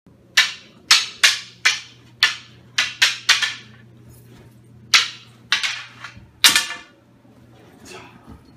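Wooden sticks clacking together in a mock sword fight: about a dozen sharp, hard clacks in quick, irregular bursts, with a pause about four seconds in. A faint steady low hum sits underneath.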